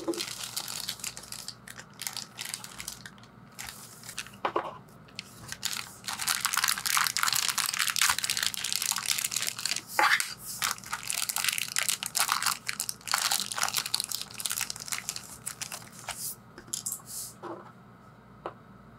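Thin clear plastic bag crinkling and rustling as small plastic toy parts are handled and taken out of it, with scattered light clicks of plastic pieces. The crinkling is densest through the middle and quieter near the start and the end.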